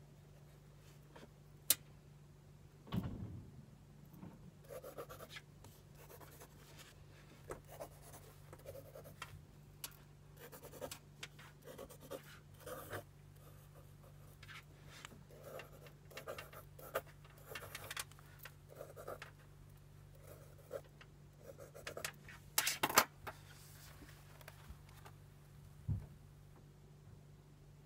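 Pencil sketching on spiral-bound sketchbook paper: short, irregular scratchy strokes with pauses between them. A few louder knocks and bumps come from handling the pad, a cluster a little over three quarters of the way in and one near the end as the sketchbook is lifted. A faint steady low hum sits underneath.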